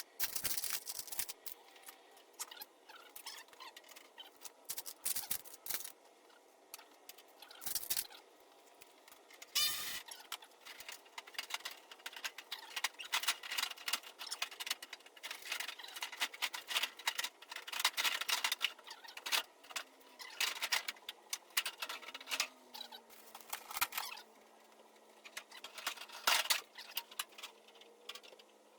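Irregular clicking, rattling and scraping of hand tools and metal body parts, in bursts with short pauses, during work to strip the truck's front-end panels.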